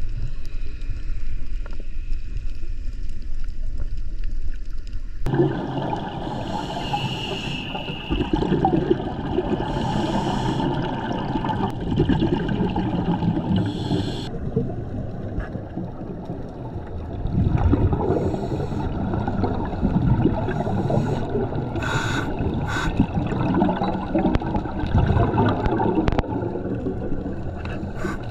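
Underwater sound picked up through a camera housing: scuba divers' exhaled bubbles from their regulators gurgling in bursts every few seconds over a steady underwater rumble. The sound changes abruptly about five seconds in and again near the middle.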